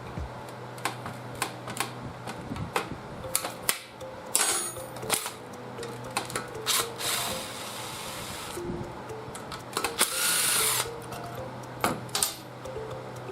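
Tools clicking and clinking against metal parts as a seized small engine is taken apart, with two short noisy bursts about seven and ten seconds in that fit a power tool. Soft background music plays underneath.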